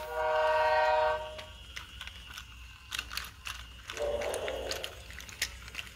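BRIO Smart Tech Sound toy engine playing an electronic sound effect from its speaker: a steady pitched tone that holds for about a second and a half, then fades. After it come faint clicks and a brief rumble of the toy train rolling on wooden track.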